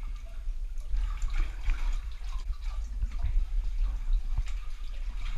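Water splashing and dripping as a diver moves through shallow water at the surface, over a steady low rumble.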